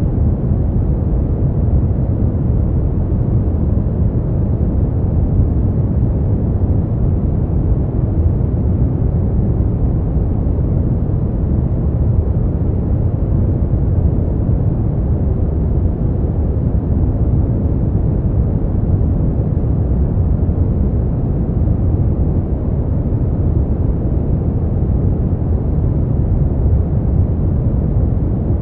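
Smoothed brown noise: a steady, deep rumbling hiss with most of its weight in the bass and almost nothing above the midrange, unchanging throughout.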